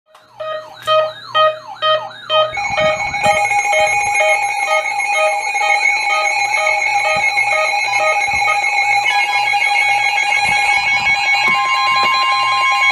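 Emergency alert tones from several alert devices sounding at once: a beeping about twice a second over a warbling tone, then from about two and a half seconds in a set of steady alert tones, with one more steady tone joining near the end. They signal an incoming severe thunderstorm warning.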